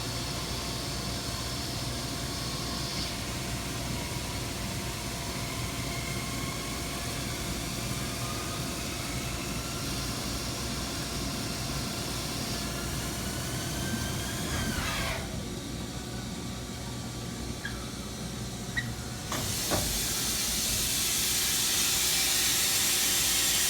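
Milling machine running while cutting a brake hat: steady machine noise with faint whining tones that slowly rise in pitch, under a hiss. The hiss cuts out for a few seconds after about fifteen seconds, then comes back louder and stays.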